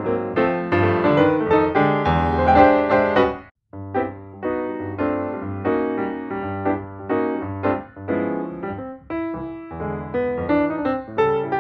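Background piano music, a run of notes and chords with a brief break about three and a half seconds in.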